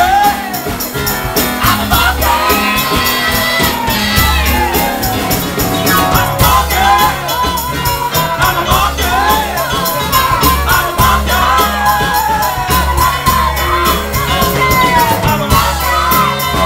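Live rock band playing loud: a male lead singer belting over drums with steady cymbal hits and an electric piano.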